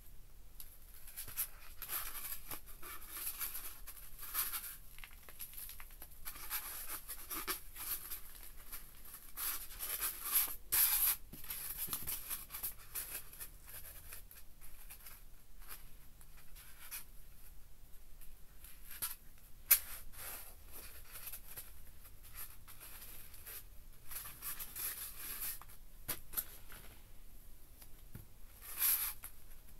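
Irregular scratching and rustling of hands handling a skinned fish on a styrofoam board, wiping the inside of the skin with a tissue. A sharp click comes about twenty seconds in.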